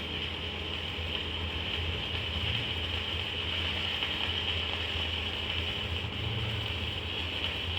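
Machinery running steadily: a low hum under a high, even hiss, with no breaks or changes.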